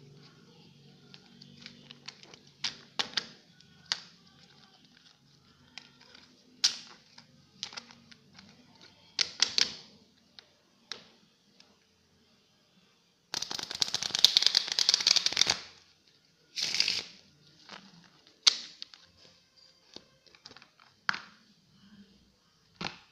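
Goodlake plastic-coated playing cards being shuffled and handled: scattered card snaps and taps, and a dense run of rapid card clicks lasting about two seconds a little past the middle, with a shorter run soon after.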